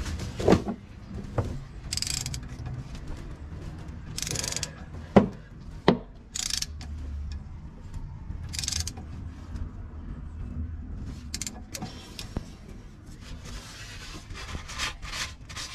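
Hand tools and parts being handled during an axle oil change: scattered metallic clicks and knocks, the sharpest two about five and six seconds in, with a few short scraping rustles over a low hum.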